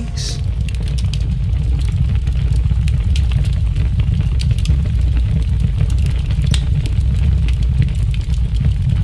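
Deep, steady rumble with scattered faint crackles: a cinematic sound effect laid under the animated title.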